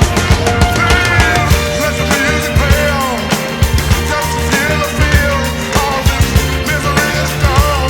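Loud rock-style music with a steady, fast drum beat and a wavering melody line over it.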